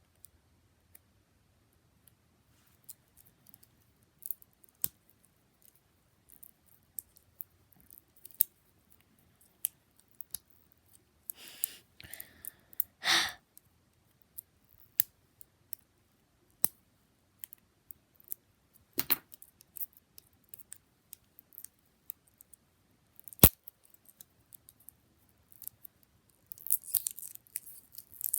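Scattered small clicks and taps from small plastic putty containers being handled and opened, with a short rustle about twelve seconds in and one sharp, louder click about two thirds of the way through.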